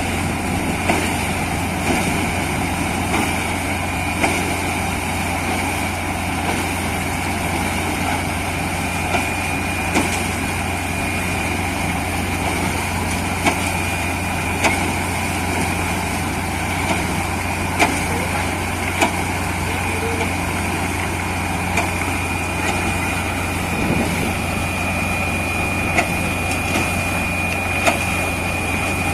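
Borewell drilling rig running steadily: the engine and air compressor give a continuous drone with a steady high whine, and sharp knocks come every second or two.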